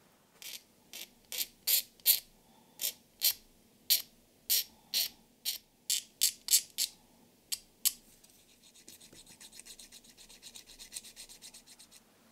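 A small hand tool scraped in short strokes across a plastic scale-model part, cleaning it up: about seventeen sharp, separate strokes over the first eight seconds, then a run of quicker, fainter rasping strokes.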